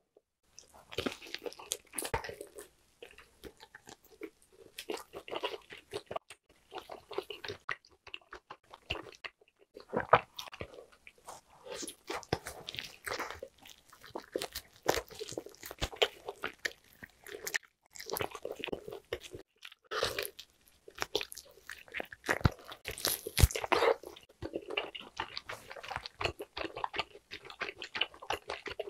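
Eating sounds of grilled lamb skewer meat: biting it off the skewer and chewing, irregular wet mouth sounds with frequent sharp crisp clicks and a few brief pauses.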